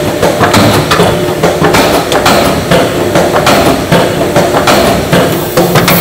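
Meat-processing machinery running with repeated knocks and clanks, a few a second, over a steady machine drone.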